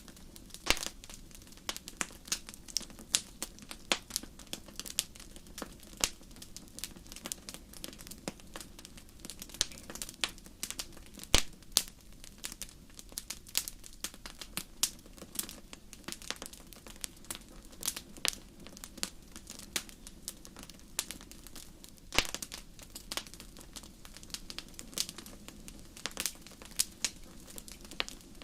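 Wood fire burning in a fireplace, crackling with many small irregular pops and snaps, a few much louder ones about a third and three quarters of the way through, over a soft steady rush of the flames.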